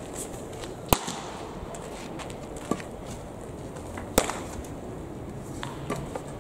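A baseball popping into a leather glove: two sharp pops about three seconds apart, with a fainter knock between them.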